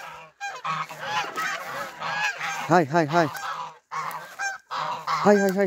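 A flock of domestic geese honking, with many short calls overlapping throughout and louder honks around the middle and near the end, as the birds are being driven along.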